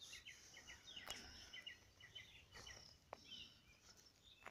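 Faint outdoor birdsong: a small bird giving quick runs of short high chirps, with two faint clicks about one second and three seconds in.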